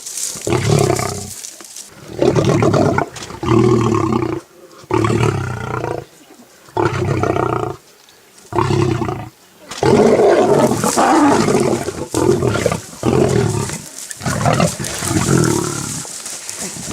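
Big cat, likely a lion, roaring repeatedly in calls about a second long with short pauses between them. About ten seconds in comes a longer, harsher stretch of roaring.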